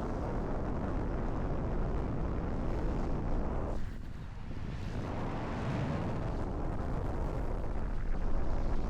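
Strong wind buffeting the microphone, a steady low rumble that eases briefly about four seconds in.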